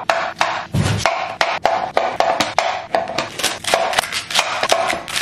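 Chef's knife chopping pineapple and then celery on a wooden cutting board: a run of sharp knocks, a few a second, with one duller thump about a second in.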